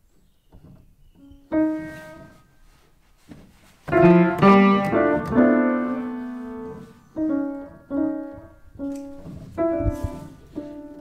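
A toddler pressing Broadwood piano keys with flat hands: a few scattered single notes, then a loud cluster of several keys struck at once about four seconds in that is left to ring, followed by more uneven notes and small clusters.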